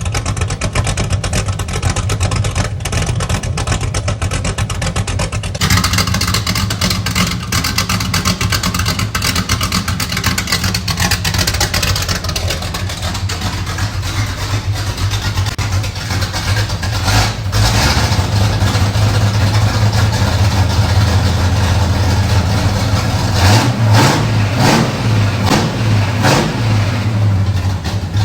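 Built 305 small-block V8 with a big race cam running loud through a 3-inch exhaust into an X-pipe with a side exit, idling and then revved several times in the last third.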